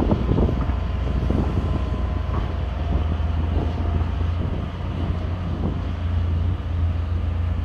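Hitachi ZX210LC crawler excavator's diesel engine running steadily as the boom and arm move, with a faint higher whine over the low drone.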